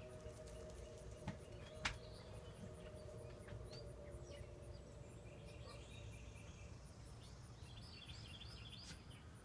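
Faint, distant steam locomotive whistle: several tones sounding together as one chord, held and fading away over the first few seconds. Behind it, faint bird chirps, an even high insect ticking, and one sharp click about two seconds in.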